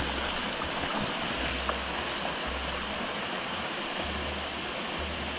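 Steady rush of a small forest waterfall pouring into a shallow pool, with a low rumble coming and going underneath.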